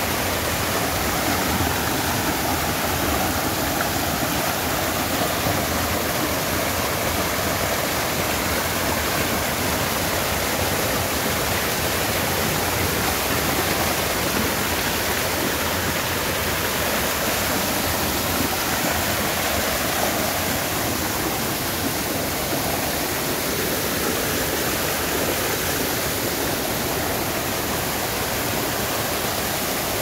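Mountain stream pouring in small waterfalls over granite boulders: a steady rush of falling, splashing water.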